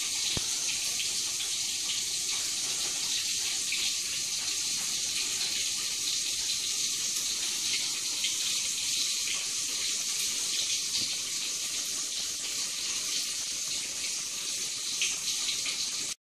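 Electric food steamer giving off a steady hiss of steam as its water boils, with faint scattered ticks.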